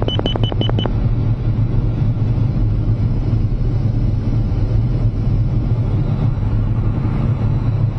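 MiG-29 jet cockpit noise: a steady low rumble of engine and airflow. A high cockpit warning tone beeps rapidly, about five times a second, and stops about a second in.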